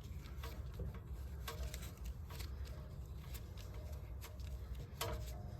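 Irregular light clicks and ticks, about one or two a second, over a low hum, as a brake caliper piston tool is turned by hand to press the piston slowly back into the caliper.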